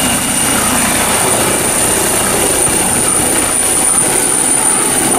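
Helicopter sound: a steady, dense rotor-and-engine noise with a thin, steady high-pitched whine over it.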